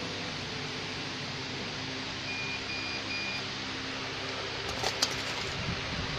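Steady fan whir from a laser cutting machine, with three short high beeps a little over two seconds in and a couple of sharp clicks near the end.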